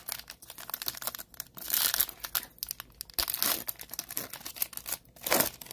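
Foil wrapper of a basketball trading-card pack being torn open and crinkled by hand: an irregular run of crackling rustles, with louder bursts about two, three and a half, and five seconds in.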